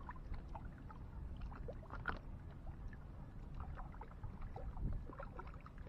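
Small waves lapping and splashing against shoreline rocks, a scatter of little splashes over a steady low rumble of wind on the microphone.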